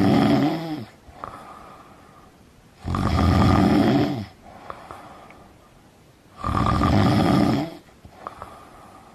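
A person snoring loudly: three long snores, each over a second, about three and a half seconds apart, much quieter in between.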